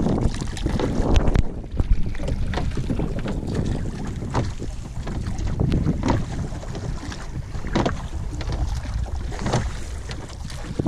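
Wind buffeting the microphone, with water splashing and lapping against the hull of a small open boat under way, a short splash every second or so.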